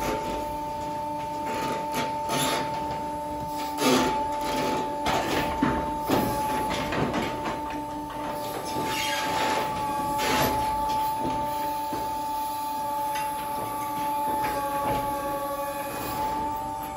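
A hydraulic arm with a tine attachment tearing apart compressed alfalfa bales: a steady machine whine under repeated rustling and scraping of hay, with louder surges about four, six and ten seconds in.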